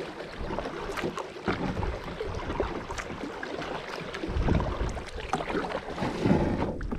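Double-bladed kayak paddle dipping and pulling through the water, with splashing and drips as the blades come out, and water slapping along the inflatable kayak's hull.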